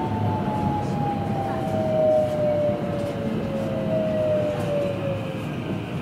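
Electric commuter train heard from inside the car as it brakes for a station stop: the traction motors give a whine that falls steadily in pitch over the rumble of wheels on the rails. The whine fades out near the end.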